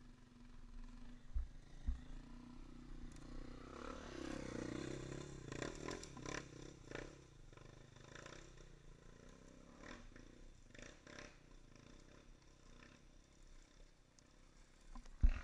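Off-road motorcycle engines running low, with one revving up and down for a couple of seconds about four seconds in. Scattered clicks and knocks, and a sharp thump near the end.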